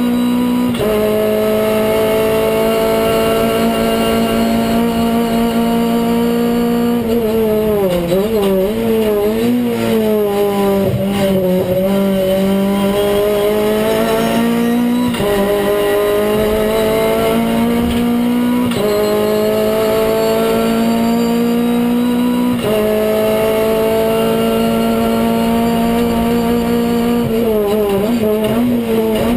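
Renault Clio Cup race car's four-cylinder engine heard from inside the cockpit at full racing pace, the note climbing steadily through each gear and dropping suddenly at upshifts about a second in, around halfway, and twice more after. Around a quarter of the way in and again near the end the pitch falls and wavers as the car brakes and downshifts for a corner, then climbs again.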